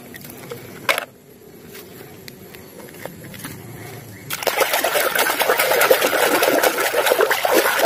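A hand swishing a mud-caked toy vigorously in a tub of muddy water: a quiet stretch with a single knock about a second in, then continuous churning and splashing from about four seconds in.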